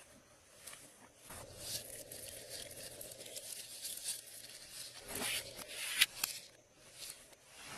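Glossy slime being stretched and squished by hand, giving irregular sticky crackles and clicks, the loudest about five and six seconds in.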